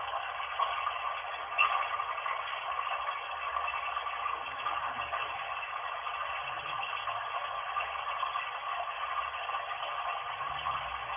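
Recorded playback of running bath water, played from a video through a small speaker and picked up on a mobile phone: an even, thin, tinny rush of water noise. A small click comes about a second and a half in.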